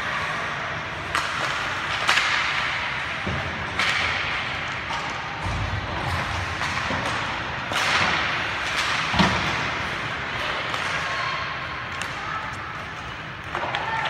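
Ice hockey play close to the boards: several sharp clacks and thuds of sticks, puck and bodies against the boards and glass, over a steady scrape of skates on the ice.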